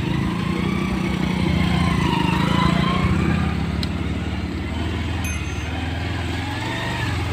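Motorcycle engine running steadily while riding along a muddy dirt track, its low engine note a little louder about two to three seconds in.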